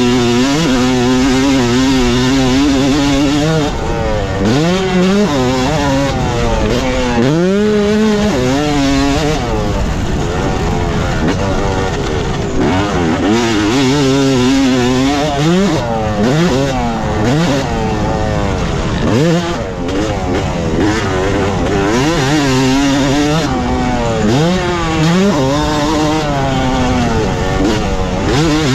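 Yamaha YZ250 single-cylinder two-stroke dirt bike engine being ridden hard, its pitch rising and dropping again and again as the throttle is opened and shut.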